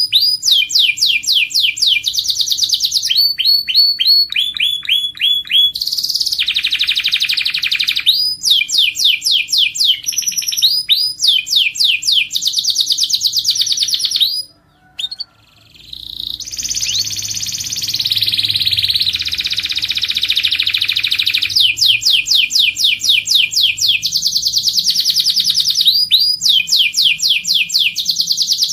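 Canary singing: fast trills of rapidly repeated notes, switching from one trill to the next every second or two. The song breaks off for about a second just past the middle, then carries on.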